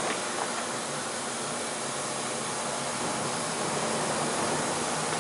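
Steady whirring hiss of a powered-up Fadal 6030 CNC vertical machining center, with no distinct knocks or changes.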